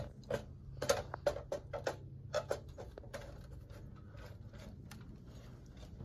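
Irregular light clicks and knocks, about a dozen in the first three seconds, then thinning out: hands and boots on a ladder while climbing up through a roof hatch.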